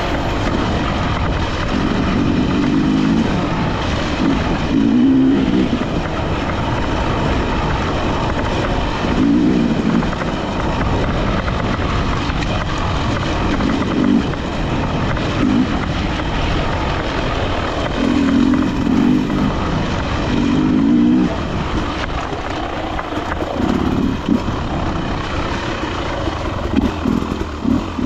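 Enduro dirt bike engine under way on a trail, its note rising and falling with the throttle, over a constant rushing noise.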